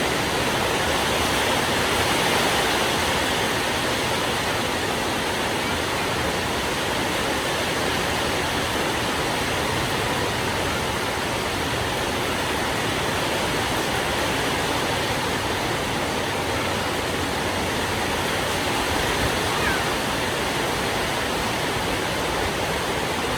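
Heavy rain falling hard, a dense, steady hiss that does not let up.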